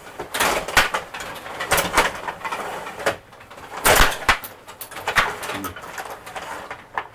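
Rod hockey game in play: rapid, irregular plastic clacks and knocks as players are spun and slid on their rods and the puck is struck, with the sharpest knock about 4 seconds in.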